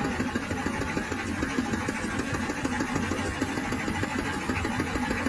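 Engine-driven threshing machine running steadily, a fast even rattle over a low engine drone.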